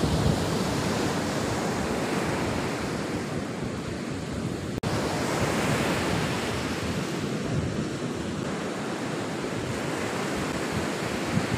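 Surf breaking and washing up a sandy beach, a steady rushing wash of waves, with wind on the microphone. The sound drops out for an instant about five seconds in.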